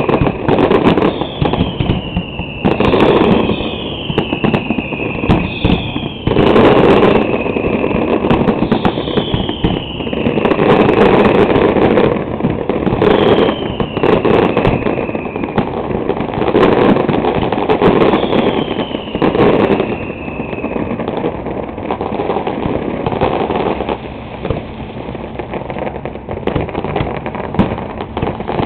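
Aerial fireworks display: a dense run of booming shell bursts and crackling. Through the first two-thirds there are about eight whistle tones, each falling in pitch. Near the end it thins to scattered bursts and crackle.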